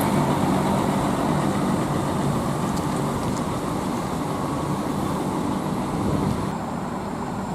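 Hino bus's diesel engine running as the bus drives past and away, slowly fading.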